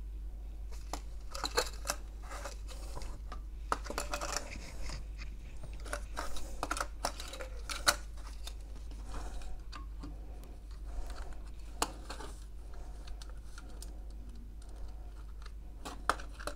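Irregular clicks and crackles as solder is fed onto a large battery post heated by a 150 W soldering iron: rosin flux spitting on the hot joint, mixed with small handling knocks. A steady low hum runs underneath.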